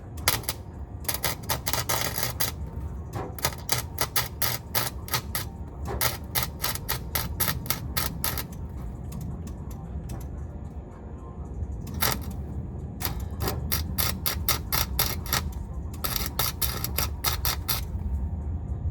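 Welder arcing on a car's exhaust pipe in several bursts of rapid crackling a few seconds long, with short pauses between the welds, over a steady low rumble.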